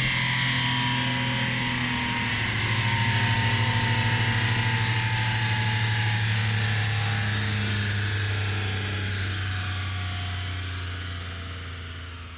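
Nissan 300ZX Z32's turbocharged V6 idling steadily, with a faint high tone slowly drifting down in pitch; the sound fades away over the last few seconds.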